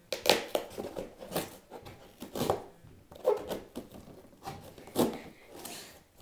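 Cardboard mailing box being handled and moved about: several irregular knocks and scrapes, about five in all.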